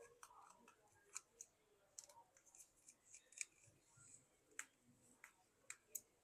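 Faint, irregular sharp clicks of a small screwdriver and tiny screws being handled as the screws under a smartphone's camera cover are taken out.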